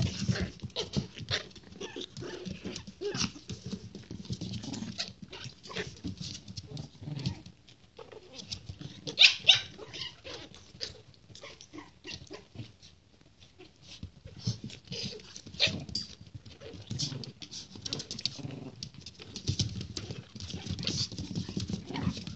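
Japanese Chin puppies play-fighting: scuffling and claws scratching on the pen floor, with small puppy growls and whimpers. The loudest scuffle comes about nine seconds in.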